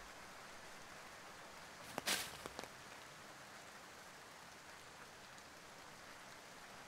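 Steady hiss of light rain, with a brief rustle about two seconds in.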